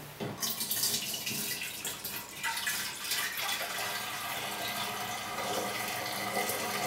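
Hydrogen peroxide pouring steadily from a plastic bottle into a large glass Erlenmeyer flask, a continuous splashing fill.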